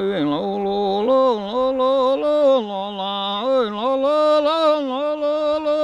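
A man yoiking unaccompanied: a traditional Sami yoik that he calls his own kind of yoik and believes dates from the 1600s. He sings in long held notes that step up and down in pitch, rising higher about a second in.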